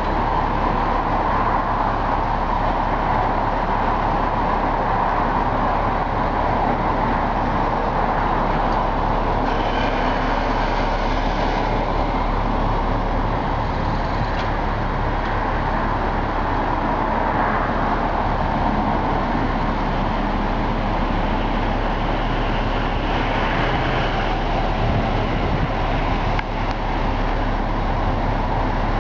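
Boom lift's engine running with a steady drone.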